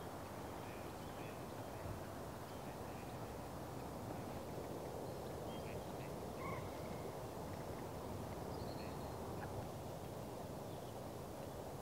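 Faint lakeside ambience: a steady low rush of outdoor noise with a few short, distant bird calls scattered through it.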